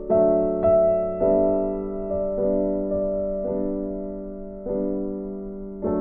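Slow, gentle background piano music: single notes or chords struck about once a second over held lower notes, each fading away.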